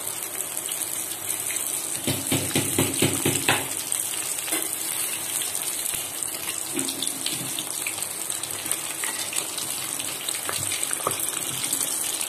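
Coated chicken pieces deep-frying in mustard oil over low heat, a steady high sizzle. About two seconds in comes a run of sharp clicks and knocks, with a few more near the end, as metal tongs and a spoon turn the pieces against the pan.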